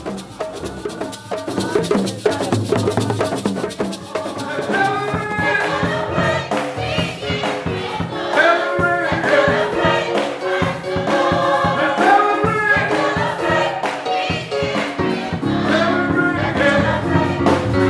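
Gospel music with a choir singing over a rattling percussion beat. The voices come in about five seconds in.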